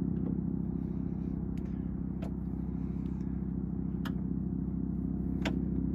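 Steady low hum of the car running, with about five sharp clicks scattered through it as a screwdriver is pushed into the rear door's latch to trip it shut.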